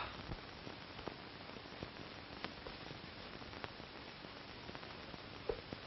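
Faint, steady hiss of an old film soundtrack, with scattered faint clicks and crackles.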